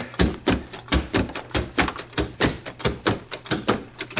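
Carpet knee kicker being bumped with the knee again and again, about four sharp knocks a second, hooking the carpet onto the tack strip along the wall.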